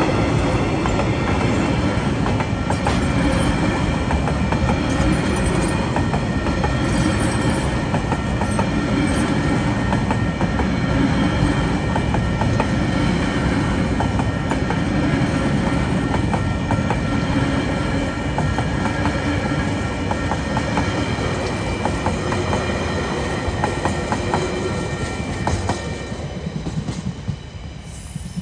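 TasRail freight train rolling past: a steady rumble of wheels on rail with repeated clicks over the joints and some ringing from the wheels, easing off near the end as the train moves away.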